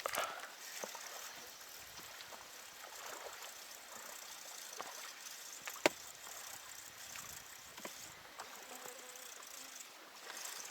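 River water trickling and lapping softly around a drifting boat, with faint scattered clicks and one sharper click about six seconds in.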